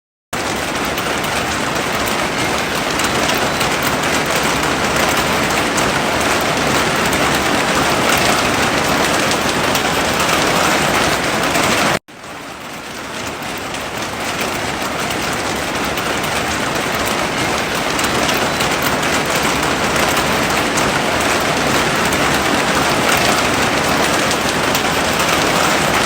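Heavy rain pouring steadily, a dense even hiss. About halfway through it cuts out for an instant and swells back up over a couple of seconds.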